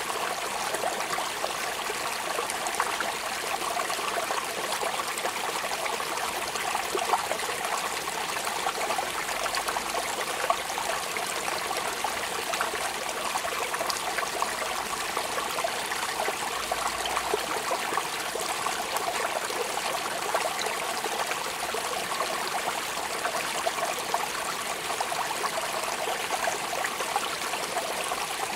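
Steady rain: an even hiss of falling drops, flecked with many small sharp ticks.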